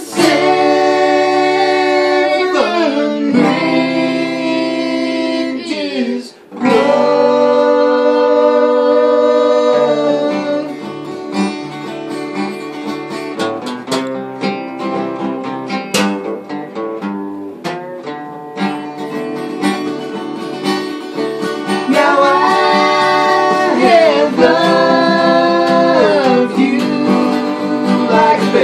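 Three voices singing in close harmony over two acoustic guitars. The voices drop out for about twelve seconds in the middle, leaving the guitars playing alone, then come back near the end.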